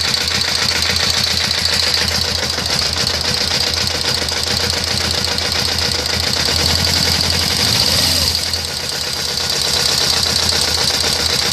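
Suzuki GS500's air-cooled parallel-twin engine running warm, with a fast, rhythmic tick-tick from the top of the cylinder head that keeps pace with engine speed. The tick appears only once the engine has heated up.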